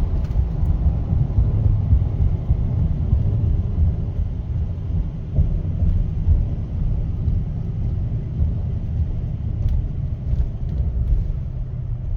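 A 6.6 L Duramax L5P turbo-diesel pickup engine running with its exhaust brake engaged as the truck slows, a steady low rumble.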